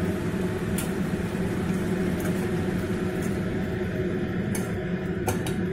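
Watery chicken-and-potato curry bubbling at the boil in a steel pot, stirred with a spoon that clicks against the pot a few times.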